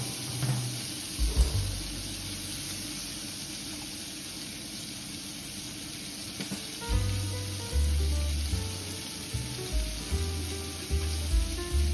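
Pork strips sizzling steadily in a hot frying pan, with a few knocks of the spatula against the pan in the first second or so. Background music with bass notes comes in about seven seconds in.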